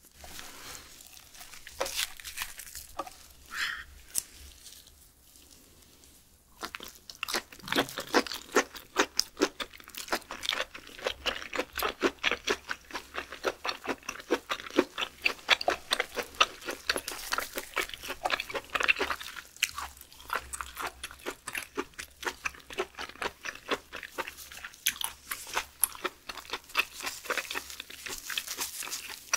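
Close-miked chewing of a mouthful of raw beef skirt: a dense, rapid run of clicks and smacks that starts about six seconds in, after a few quieter seconds of handling the food.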